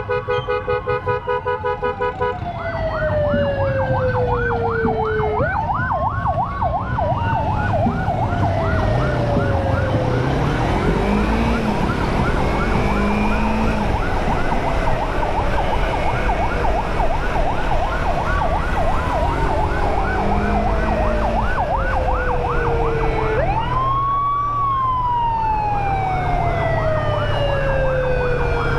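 Electronic emergency sirens of an ambulance escort convoy: a rapidly pulsing horn-like tone for about the first two seconds, then a fast warbling yelp together with a slower wail that falls over several seconds and jumps sharply back up, repeating. A motorcycle engine runs underneath.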